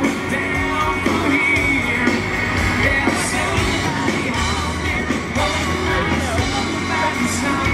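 Live band playing through a PA system: a woman singing lead into a microphone over drums and band.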